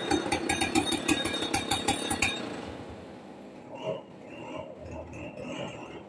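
Two-stroke Stihl chainsaw idling with fast, uneven popping, then stopping a little over two seconds in.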